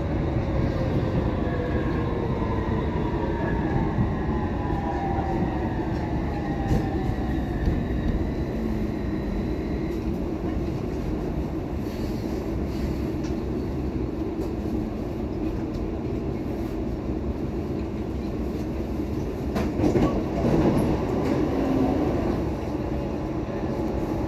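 Copenhagen Metro driverless electric train heard from inside the car, rumbling steadily on the rails while its motor whine, in several tones, falls in pitch as it slows into an underground station. A brief louder burst of noise comes about 20 seconds in.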